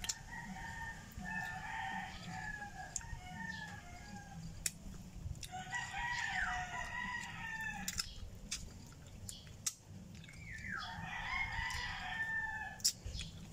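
A rooster crowing three times, each crow two to three seconds long, with short sharp clicks from eating crunchy fried chicken feet in between.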